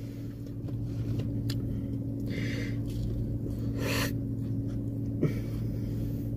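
Steady low hum of a car idling, heard from inside the cabin. A couple of brief breathy noises come over it, one in the middle and one about four seconds in.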